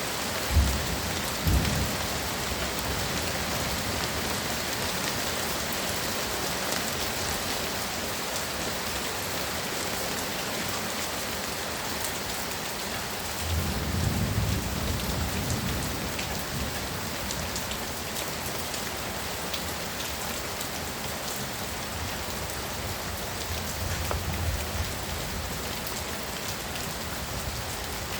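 Heavy rain pouring steadily, with low thunder rumbles swelling about halfway through and again more faintly near the end, and two brief low thumps about a second in.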